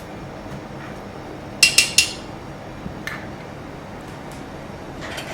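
Kitchen utensils clinking against dishware: a quick run of three sharp ringing clinks about a second and a half in, and a softer one a second later, over steady kitchen background noise.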